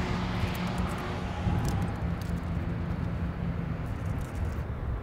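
Low steady engine hum, fading over the second half, with a few faint light clicks.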